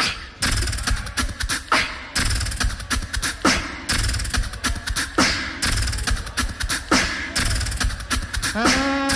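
Live looped beatboxing: layered mouth-made kick, snare and hi-hat patterns with heavy bass, built up on a loop station. A held pitched note comes in near the end.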